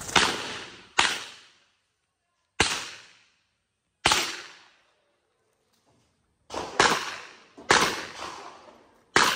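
Revolver firing a string of about eight shots at uneven spacing, some close together and others a second or more apart, each report trailing off in echo.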